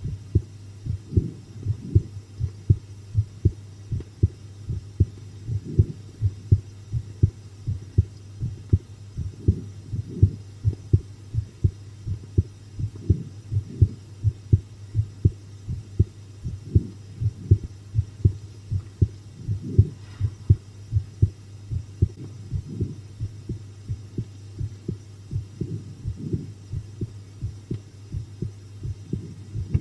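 A person's heartbeat recorded close up: steady paired lub-dub thumps over a constant low hum. The recordist thinks the beat is quicker than usual from the fright of watching scary videos.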